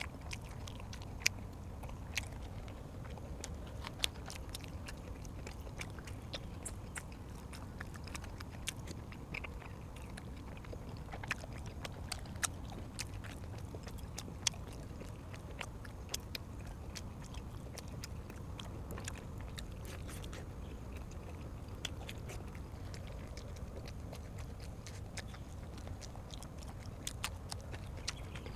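A person chewing and biting food close to the microphone, with many short sharp clicks and smacks scattered through it over a steady low hum.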